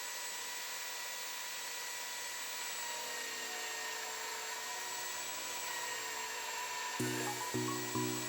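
An electric power tool, such as a drill or sander, running steadily with a high whine, over background music. About seven seconds in, the tool stops and the music carries on with a run of evenly spaced notes, about two a second.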